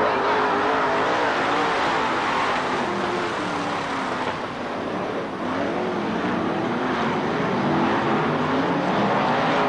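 Pack of dirt late model race cars running on the track, several V8 engines at once, their pitch rising and falling as they go by and throttle through the turns.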